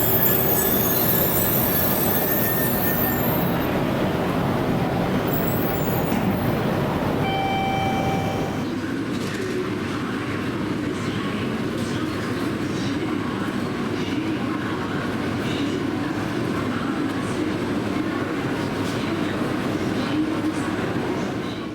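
E2 series Shinkansen train moving slowly through the station. High-pitched wheel and brake squeal sounds over the rumble in the first few seconds, with a few squeal tones again about seven seconds in. After that comes a steadier low rumble that cuts off suddenly at the end.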